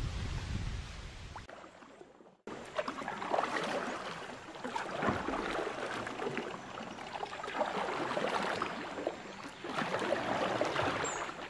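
River water splashing and lapping, with a kayak paddle dipping in and out in irregular strokes. It drops out briefly about two seconds in.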